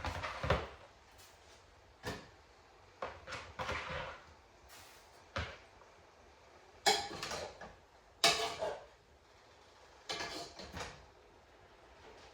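Kitchen handling noises: a series of irregular knocks and clatters as cookware and containers are moved about, the loudest two a little past the middle.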